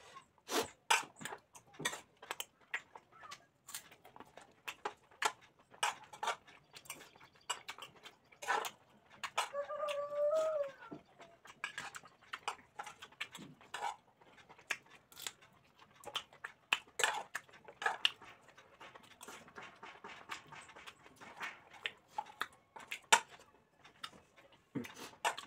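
Close-up mukbang eating sounds: chewing and lip smacks, with a spoon clinking and scraping on a ceramic plate of rice. About ten seconds in, a short wavering animal call is heard in the background.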